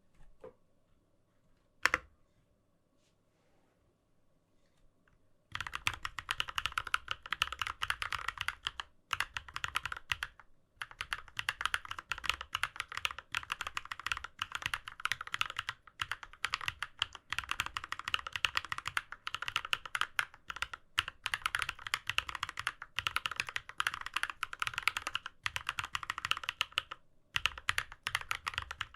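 Keychron K6 mechanical keyboard being typed on. One sharp key click comes about two seconds in, then after a few seconds of quiet the typing is fast and continuous, with a few short pauses.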